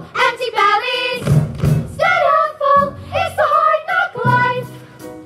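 A stage-musical cast singing together over musical accompaniment, with low thumping beats every second or so, heard from the audience seats.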